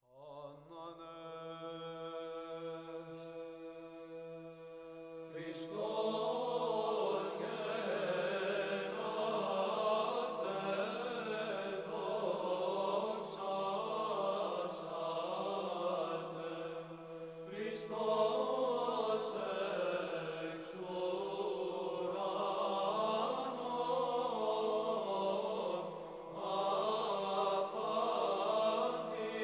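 Chanted hymn as background music: a steady held drone, joined about five seconds in by voices singing a moving melody over it.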